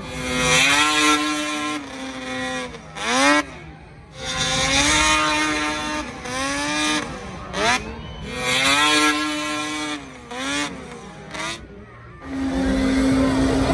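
Snowmobile engines revving hard in repeated bursts, some held at a high pitch and then dropping away, others short rising-and-falling throttle blips, as freestyle sleds are launched and flown off the jump.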